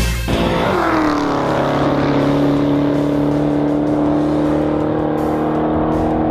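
Dodge Charger engine running, its pitch dropping in the first second and then holding steady.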